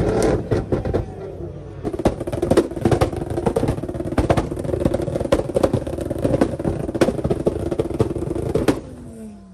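Tuned Nissan GT-R held at high revs, its exhaust popping and crackling as it shoots flames. The revving and crackles cut off sharply near the end.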